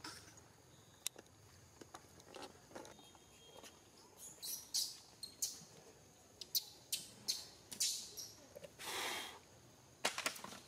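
Macaque monkeys giving a scattering of short, high-pitched squeaks and chirps, mostly in the second half, with a longer squeal about nine seconds in.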